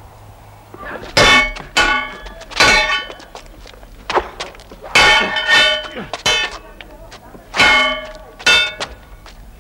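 Loud metallic clangs, each ringing on briefly. They come in groups of two or three strikes, about two-thirds of a second apart.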